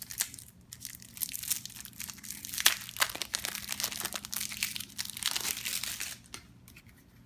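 Playing cards being handled, a dense rustle of quick flicks and clicks that stops about six seconds in.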